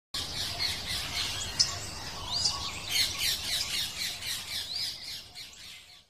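A flock of small birds chirping and squawking rapidly, many calls overlapping, fading out near the end.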